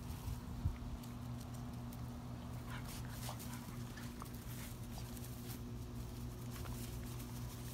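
Puppies whimpering and yipping faintly now and then over a steady low hum, with a single knock less than a second in.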